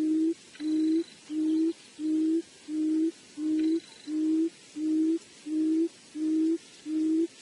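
A low hooting call repeated very evenly, about eleven short hoots, each rising slightly in pitch, roughly one and a half per second. Faint high chirps sound twice.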